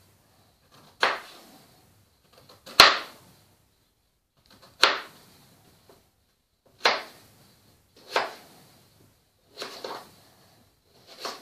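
Kitchen knife slicing a raw peeled potato into thin rounds on a cutting board, the blade knocking the board about seven times at uneven one- to two-second intervals.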